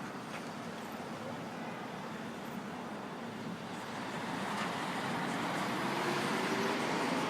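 City street traffic: a steady wash of road noise. A vehicle passing close grows louder over the last few seconds.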